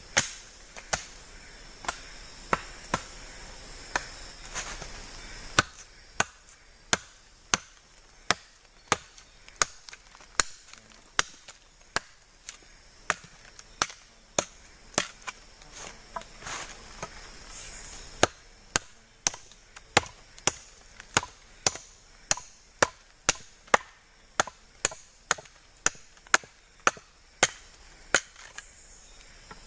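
Repeated chopping blows into wood, sharp strikes in a steady rhythm of about three every two seconds, over a steady high hiss.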